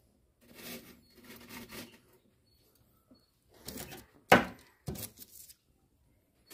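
A plastic ornament is pressed into a bed of aquarium gravel in an empty glass tank, and the stones rattle and shift. Then come a few sharp knocks: the loudest about four seconds in, a smaller one half a second later.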